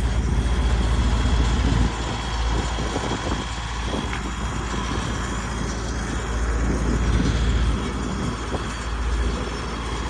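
Tractor engine running steadily under a strong, uneven low rumble of wind on the microphone.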